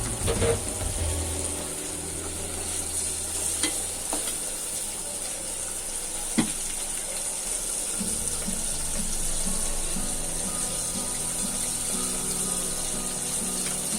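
Dried hilsa fish and chopped onion sizzling as they fry in hot oil in a kadai, with a few sharp clicks against the pan.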